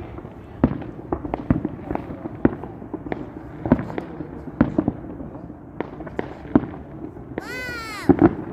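Fireworks going off in irregular succession, many sharp bangs and pops. Near the end a whistling firework gives a shriek that rises and then falls.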